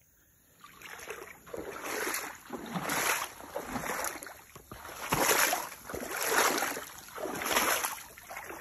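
A person wading through deep swamp water, the water sloshing and swishing around the legs with each stride, about one stride a second.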